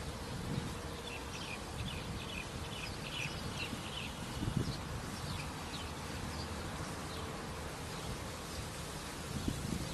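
Small birds chirping, many short high calls that are busiest in the first half, over a steady low rumble of road traffic.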